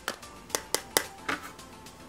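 About five sharp plastic clicks and taps, the loudest about a second in, as an Apple clear MagSafe phone case is handled and pulled from its packaging, over soft background music.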